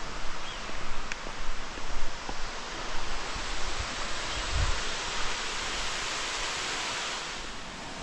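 Steady rush of a waterfall, with a low thump about halfway through.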